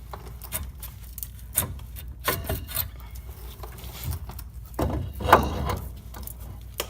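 Metal clicks, knocks and scraping as a brake caliper is handled and set on top of the suspension control arm, with a louder cluster of knocks about five seconds in.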